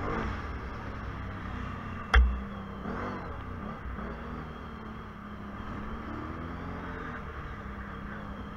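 ATV engine running on a dirt trail as heard from an action camera on board, its pitch rising and falling with the throttle. There is a single hard thump about two seconds in, the loudest sound.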